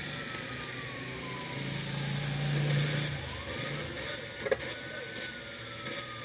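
Small AM/FM Bluetooth radio playing the AM band: static and hum with a faint whistle that slides down in pitch and then back up, and one sharp click about four and a half seconds in.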